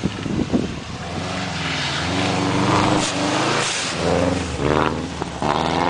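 Subaru Impreza rally car's flat-four engine revving hard as the car drives past close by on snow, its pitch rising and falling with throttle and gear changes and climbing again near the end. A few sharp cracks come in the first half-second.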